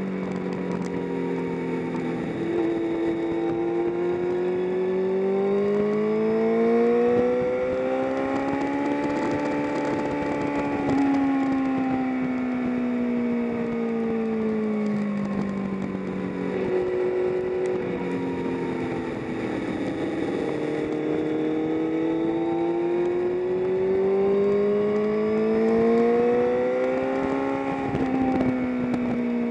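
A vehicle's engine being driven hard on a race track, its pitch climbing slowly through long pulls and then dropping, with a few short breaks where the driver shifts gear.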